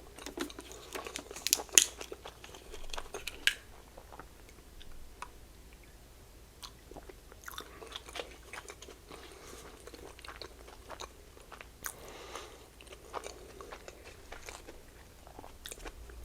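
A person chewing and biting into soft mini burgers (sliders) with the mouth close to the microphone: wet, crackly mouth sounds and small clicks, busiest in the first few seconds.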